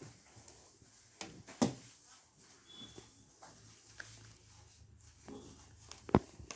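Occasional light clicks and taps of a small screwdriver working the battery screws inside an opened MacBook Air, with two sharper knocks, one about a second and a half in and a louder one near the end.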